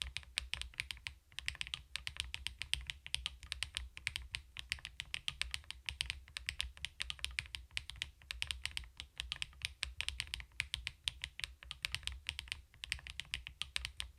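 CoolKiller VIVID67 full-aluminium mechanical keyboard being typed on, a fast, steady stream of keystrokes at several clicks a second.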